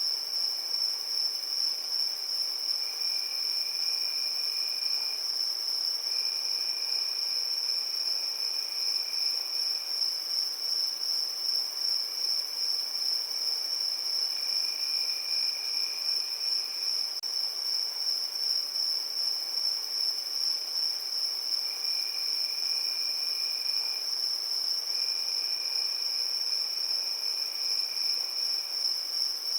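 Crickets chirping in a steady high-pitched chorus, with a second, lower trill joining in for a few seconds at a time, several times over.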